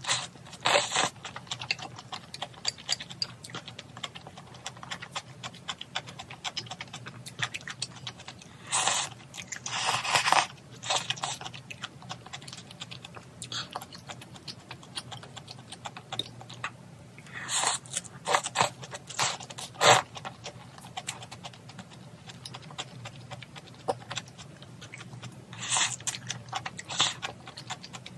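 Close-up mukbang eating of spicy noodle soup: wet chewing and mouth clicks throughout, with louder bursts of noodles being slurped several times.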